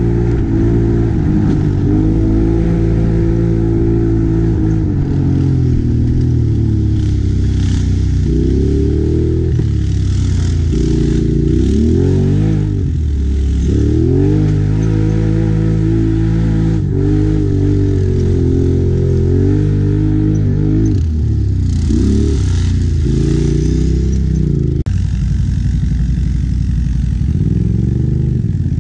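ATV engine running hard over a rough dirt trail, its pitch rising and falling again and again as the throttle opens and closes.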